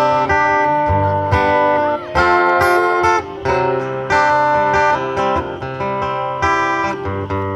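Steel-string acoustic guitar strummed solo, a run of chords ringing one after another with a change about every second, and no singing.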